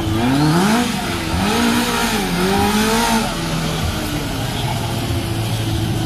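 Car engine revving up and down in several quick sweeps, then settling to a steady run about three seconds in.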